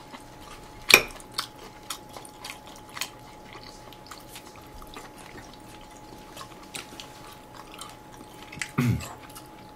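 Quiet eating sounds at a dinner table: utensils clicking lightly against dishes and food being chewed, with one sharper click about a second in.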